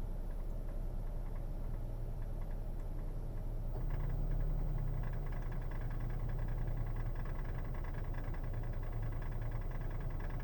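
2008 Ford Taurus X's 3.5-litre V6 idling steadily, with a faint, rapid ticking over it; about four seconds in the idle note rises a little and the ticking becomes more distinct. The tick sits behind the dash on the driver's side, and the owner takes it for transmission-related.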